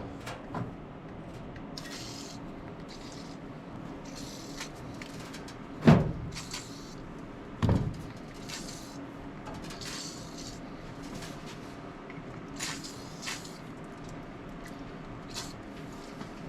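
Tools and parts being handled: two sharp knocks about two seconds apart are the loudest sounds, among small clicks and several short hissing bursts over a steady low hum.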